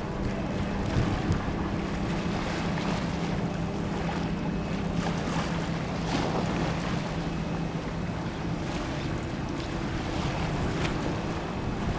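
Waterfront ambience: wind buffeting the microphone over lapping harbour water, with a steady low hum that fades out about three-quarters of the way through and a few faint clicks.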